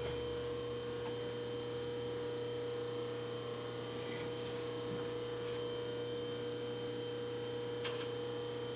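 Milling machine running steadily, its motor and phase converter giving a constant mid-pitched hum with a low drone and a thin high tone underneath. There are a couple of faint clicks, about four seconds in and near the end.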